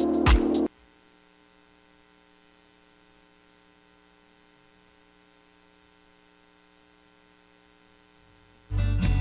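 Background music with a steady beat that cuts off suddenly under a second in, then near silence with a faint steady hum. Music starts again near the end.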